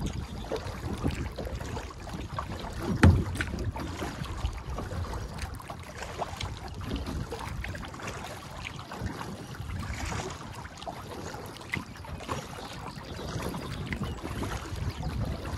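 Kayak paddling: irregular paddle splashes and water slapping against the hull, with wind on the microphone. One loud knock about three seconds in.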